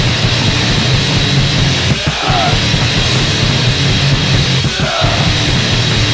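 Punk rock band recording playing loud and steady, an angry, heavy song with no break.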